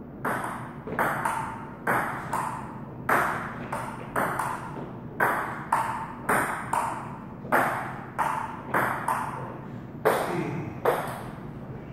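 A table tennis rally: the plastic ball clicks off a Donic table and the rubber paddles. The clicks come in quick pairs, a bounce then a hit, about once a second, each ringing briefly in the room.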